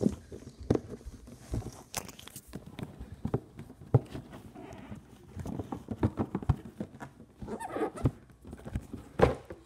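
Cardboard puzzle box being handled and opened: irregular taps, knocks and scrapes of the box and its lid.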